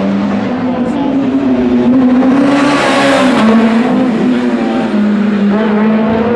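Rally car engine held at high revs, its pitch wavering with throttle, loudest as the car passes close about halfway through, with a rush of tyre and road noise.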